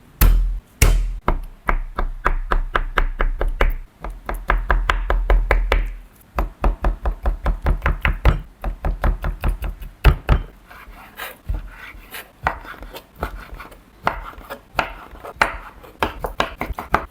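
A knife chopping rapidly on a cutting board, about four to five chops a second. The chops come in runs with short pauses, heavy and thudding in the first few seconds and lighter and more scattered later on.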